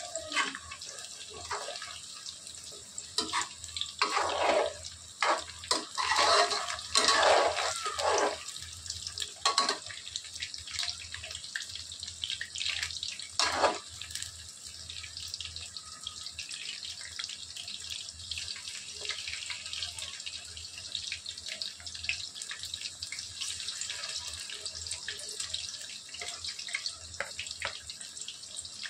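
Battered chicken pakoras deep-frying in hot oil in a metal kadhai: a steady sizzle with fine crackling. A slotted steel spoon stirs and scrapes the pieces in the pan several times in the first ten seconds or so, and once more about fourteen seconds in.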